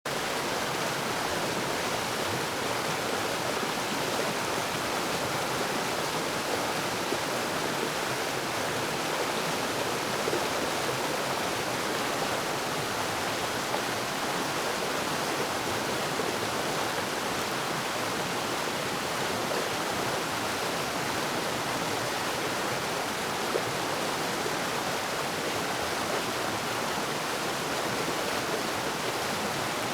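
Stream rapids: fast water rushing and splashing over rocks in a steady, unbroken rush.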